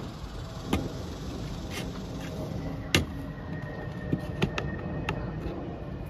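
A handful of sharp plastic clicks and knocks as cut pieces of PVC pipe are pressed and fitted into the holes of a 4-inch PVC pipe, the loudest about three seconds in, over steady low background noise.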